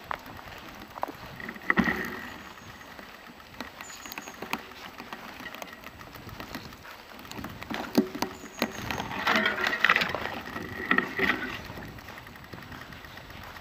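Bicycle rolling over bumpy forest ground, the frame and parts rattling with many sharp clicks. Short squeaks come about two seconds in and again for a couple of seconds near the middle.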